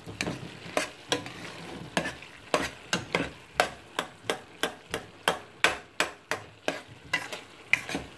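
A spatula repeatedly scraping and knocking against a stainless steel pot, about two to three strokes a second, as minced chicken keema is stirred. A low sizzle underneath comes from the last of the water cooking off.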